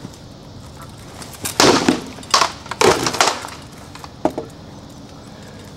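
Sword blows striking shields and armour in a quick exchange: a run of sharp, loud cracks and clanks between about one and a half and three and a half seconds in, then one more blow just after four seconds.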